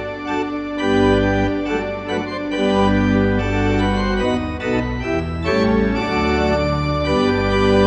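Content Celeste 340R digital organ playing slow sustained chords over a deep pedal bass, the chords changing about every second.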